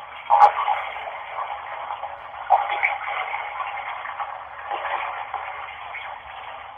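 Running tap water, a steady hiss with a thin, telephone-like sound, with short louder blips about half a second in and again about two and a half seconds in.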